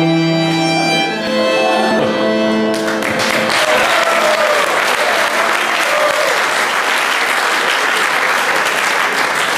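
A small string ensemble of violins, viola and cello holds a chord that ends about three seconds in, and the audience breaks into applause that keeps going.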